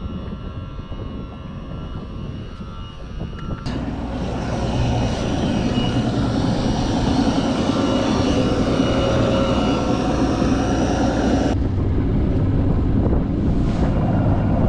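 Wind buffeting the microphone on an open bass boat: a steady rushing noise with a low drone under it, getting louder about four seconds in.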